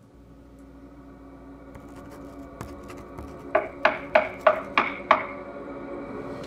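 A low drone of held tones from the film's score, swelling steadily louder. About halfway through come six sharp knocks in quick, even succession, about a third of a second apart, each with a short ringing tail.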